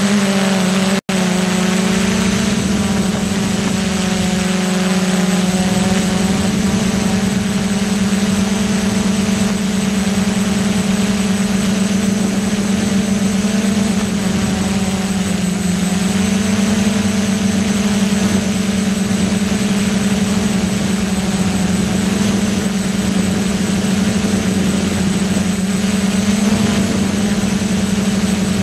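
A DIY multirotor drone's electric motors run with a steady hum, picked up by its onboard camera. The sound drops out for a moment about a second in.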